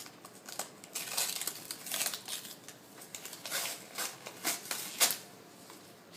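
Christmas wrapping paper being torn and crinkled as a present is unwrapped, in irregular rustling bursts with a sharper rip about five seconds in.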